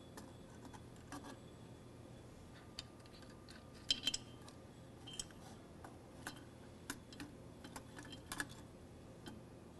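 Scattered faint clicks and taps as a circuit board is handled and seated into a metal valve housing. A brief cluster of sharper clicks comes about four seconds in, and another near the end.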